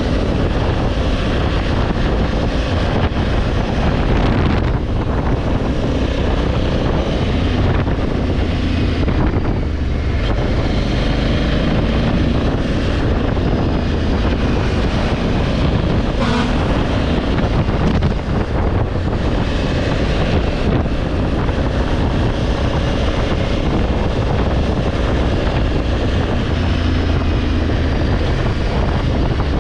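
Honda Africa Twin's 1084 cc parallel-twin engine running steadily under way, with wind buffeting the helmet-mounted microphone.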